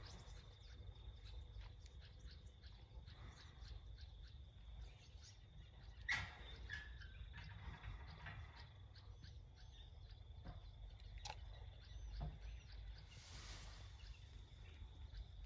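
Faint outdoor ambience: small birds chirping now and then over a low steady rumble. A sharp click about six seconds in, and a smaller one about eleven seconds in.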